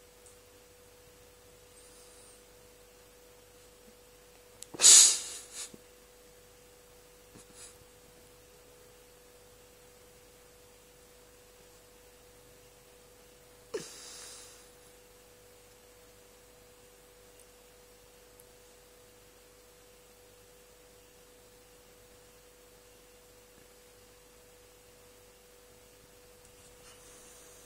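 A cat gives two short breathy bursts: a loud one about five seconds in and a softer one with a sharp start about nine seconds later. A faint steady high-pitched hum runs underneath.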